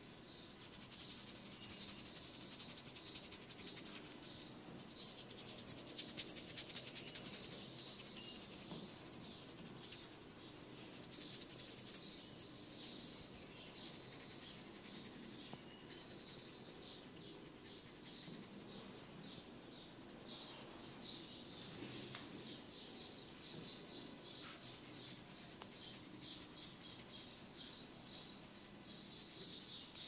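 Faint scratching of a comb through hair and over the scalp, in stretches of fine dry crackle. Quick high chirps repeat in the background throughout.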